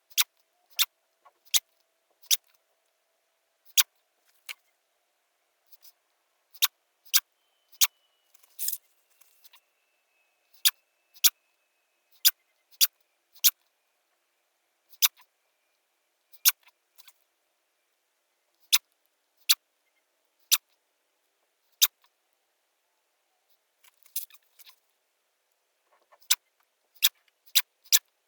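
A series of short, sharp clicks, irregularly spaced at about one or two a second, with a slightly longer noisy burst about nine seconds in.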